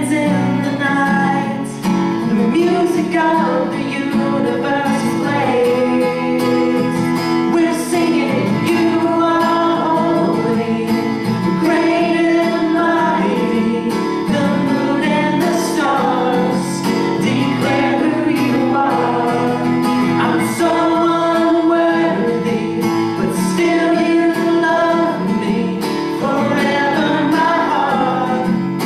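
A man and a woman singing together into microphones over a live acoustic guitar.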